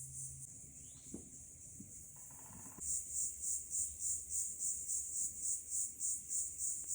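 Insects calling in a high, thin chorus that turns into a steady pulsing about three seconds in, at roughly three to four pulses a second.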